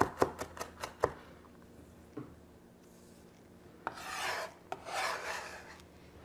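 Chef's knife chopping a jalapeño on a wooden cutting board: about half a dozen quick knife strikes in the first second. Then the chopped pepper is scraped together across the board twice, ending with the knife blade scooping it up.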